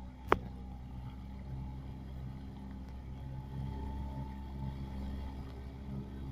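Mercury 2.5 outboard motor running steadily with a low, even hum. A single sharp click about a third of a second in.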